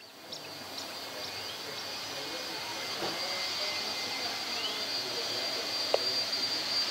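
Boeing 757 freighter's jet engines at taxi idle, a steady high-pitched whine over a low rush that slowly grows louder as the aircraft approaches.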